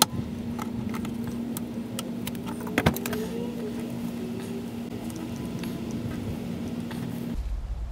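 Scattered small clicks and one sharper click about three seconds in, as the spring squeeze clamp and the lower radiator hose are worked loose by hand. A steady low hum runs underneath.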